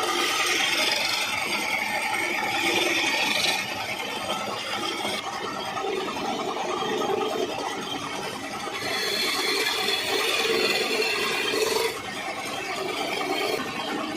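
Wood turning on a lathe: a cutting or sanding tool scraping against the spinning wooden workpiece. The scraping is louder and brighter in two spells of about three seconds each, one at the start and one in the latter half, and continues more softly between them.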